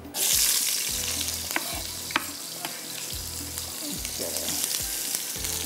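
Sliced red onions dropped into hot oil, sizzling sharply the instant they hit and then frying steadily as they start to brown, with a few sharp clicks.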